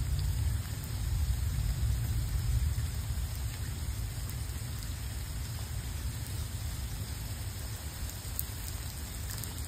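Steady rain falling, with a low rumble of thunder over the first few seconds that slowly dies away.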